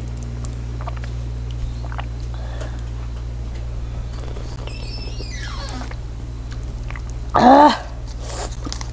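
A steady low hum, and about seven and a half seconds in a small dog gives one short, loud whine that bends up and down in pitch.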